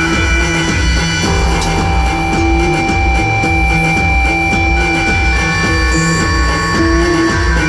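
Instrumental jam music: a steady pulsing low beat under long held high notes that change a few times.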